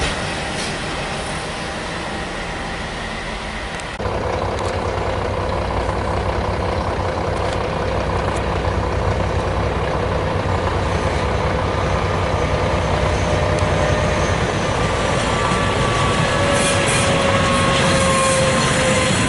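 Trenitalia diesel locomotive hauling a freight train of log wagons past, its engine running with a steady low drone that grows slowly louder as it approaches. About four seconds in, the sound steps up suddenly, and near the end high tones from the wheels slide slowly down in pitch.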